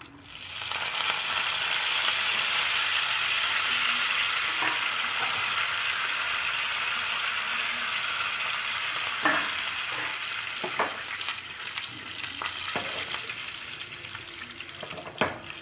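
Mustard-seed tadka in hot coconut oil sizzling hard as curry leaves are dropped in. The sizzle jumps up just after the start, eases off gradually in the second half, and a few sharp clicks come through near the end.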